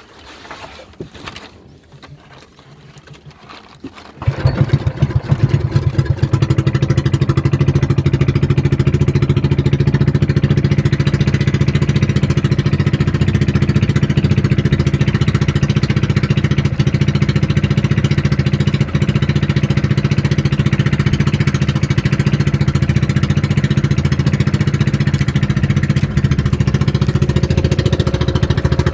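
A boat's engine starts suddenly about four seconds in, wavers briefly and then runs steadily at an even speed.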